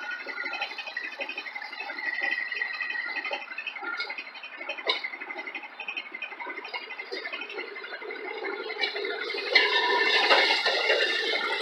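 Railroad motorcar (speeder) running along the track: a steady rattling buzz of engine and wheels, with a thin high whine above it. It grows louder and fuller about nine and a half seconds in.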